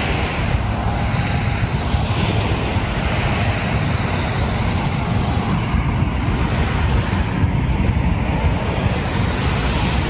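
Wind buffeting the microphone as a steady, fluttering rumble, over the wash of small waves lapping at the shore.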